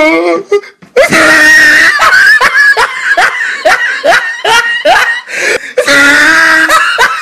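A woman laughing hard in a long run of short, rapid ha-ha bursts, about three a second, that turns into a drawn-out laughing voice near the end.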